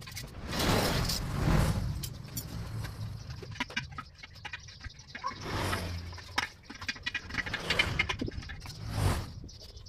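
Hands working on a cordless impact driver: a run of sharp clicks and light metallic clatter from small hard parts, with several rustling swells.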